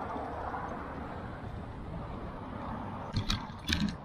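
Steady rushing noise of a bicycle ride through city streets, wind and tyre noise on the bike-mounted camera, with a few sharp clatters a little after three seconds in.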